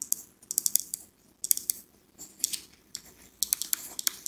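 Pen writing on paper by hand: quick runs of short, scratchy strokes, with brief pauses between the letters and words.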